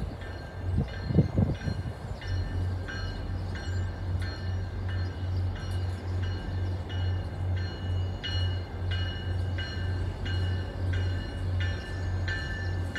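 A railway bell clanging steadily about twice a second, starting about two seconds in. It is preceded by a few low thumps in the first second and a half.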